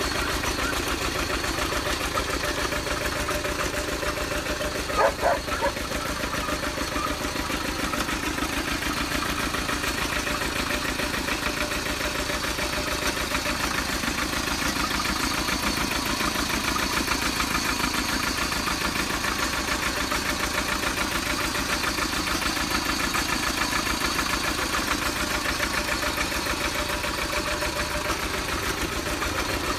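Small engine of a homemade mini tractor running steadily as the tractor is driven. About five seconds in, a short call rises briefly above it.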